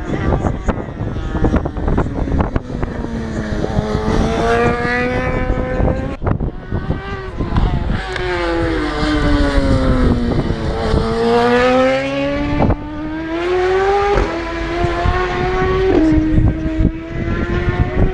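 Road-racing motorcycle engines at high revs as bikes pass through a tight corner, the pitch falling as they brake in and rising as they accelerate out, twice. Sharp steps in pitch near the end are gear changes. Wind rumbles on the microphone.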